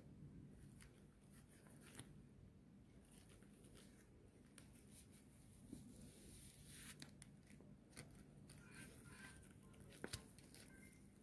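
Faint crinkling and rustling of a thin clear plastic sleeve as gloved hands work it off a makeup brush, with a few light clicks.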